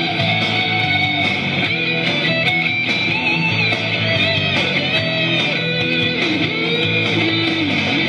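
Rock song with electric guitar playing, with a bending lead line in the last couple of seconds.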